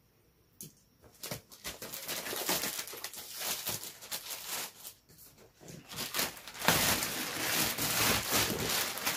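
Plastic shrink-wrap being torn and pulled off a cardboard box, crinkling and crackling. It starts about a second in and is loudest over the last few seconds.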